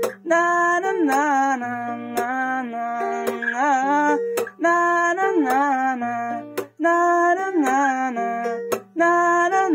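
Music: a plucked-string accompaniment in the guitar or ukulele family under a held, sliding melody line, playing a phrase that repeats about every three seconds with brief breaks, as the song's wordless outro.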